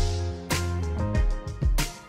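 Background music with a steady beat: deep drum thumps under held bass notes, with a bright crash-like hit about every second and a quarter.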